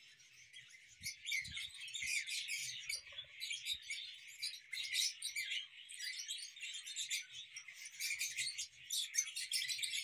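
A flock of caged lovebirds chirping continuously, many short high-pitched calls overlapping one another.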